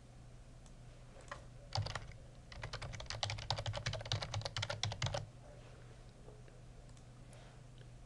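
Typing on a computer keyboard: a couple of single keystroke clicks, then a quick run of keystrokes lasting under three seconds.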